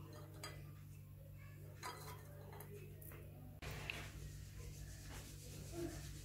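Faint room tone with a steady low hum and a few light clicks. The background changes abruptly a little over halfway through.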